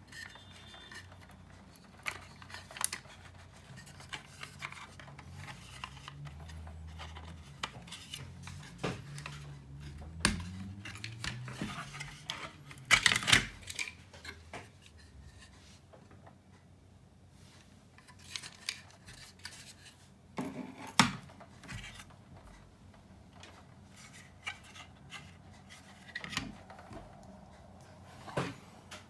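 Small parts of an amplifier's casing and internals being handled during disassembly: scattered clicks, taps and scraping of plastic and metal pieces. There is a loud cluster of knocks about halfway through and one sharp click later on.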